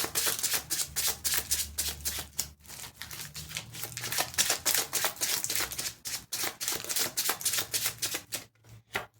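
A tarot deck being shuffled by hand: a quick, even run of card slaps and clicks, about five a second, that thins out and stops near the end.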